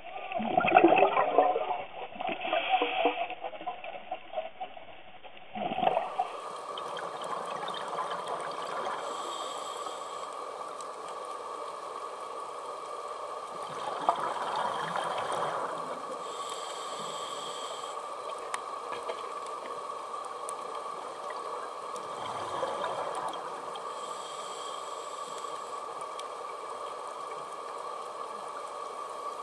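Underwater sound of scuba breathing through a regulator: gurgling bursts of exhaled bubbles that recur every few seconds over a steady hiss with a faint steady whine. The bubble bursts are loudest in the first few seconds.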